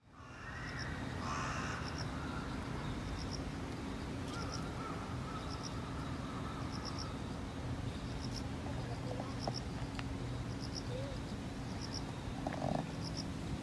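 Outdoor ambience of a steady low hum with small birds chirping: short high chirps come in quick groups of two or three, recurring every second or so.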